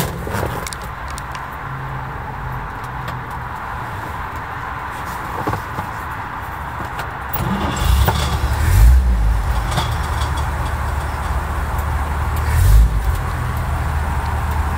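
1936 Chevrolet pickup's 216 cubic inch inline-six running, heard from inside the cab. It idles steadily, then is revved from about halfway through, swelling twice, the second time near the end.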